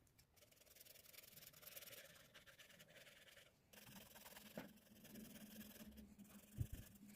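Faint scratching and rubbing of pastel strokes on paper, with a couple of soft low thumps near the end.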